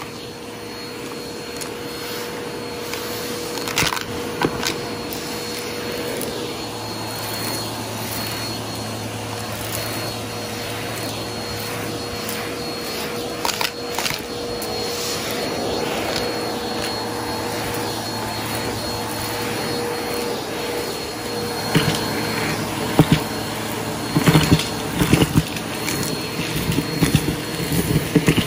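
Vacuum cleaner running steadily with a whine through a hose and brush tool pushed over carpet, picking up small debris. Sharp clicks and rattles of bits being sucked into the tool come now and then, thickening in the last few seconds.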